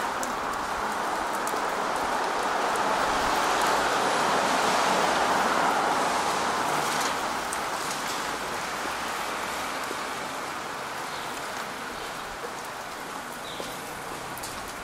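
Tyre hiss from traffic on a wet street, swelling to its loudest about five seconds in, then slowly fading.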